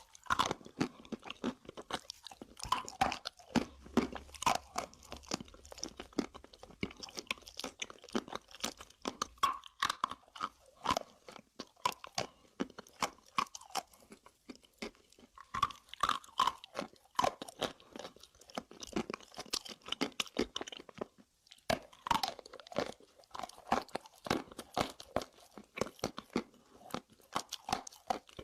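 Close-miked crunching and chewing of hard mineral sticks (chalk and slate pencil) as a person bites and grinds them. A steady run of crisp cracks and gritty crackles, with a short pause about three quarters of the way through.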